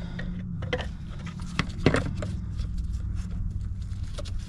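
A new diesel fuel filter and its housing being handled and fitted into the fuel pump assembly: scattered light clicks and knocks, the loudest two just before two seconds in, over a steady low hum.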